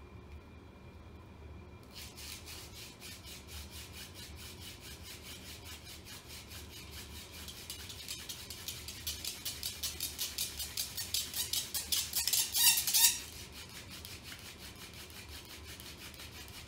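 Ironweed hand-drill spindle rubbing back and forth in a white pine fireboard, a rapid rhythmic scraping. It speeds up and grows louder as the drilling works toward an ember, ends in a short squeal, and stops about thirteen seconds in.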